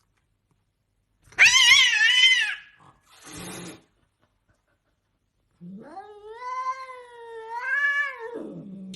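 A cat yowling: a short, loud, wavering yowl, then after a pause a long drawn-out yowl of about three seconds that rises and then falls away at the end.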